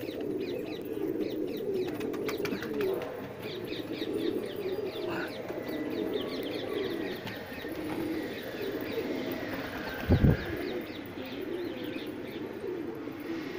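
A flock of domestic pigeons cooing nonstop, many calls overlapping, with higher chirping over it. A single brief loud low thump comes about ten seconds in.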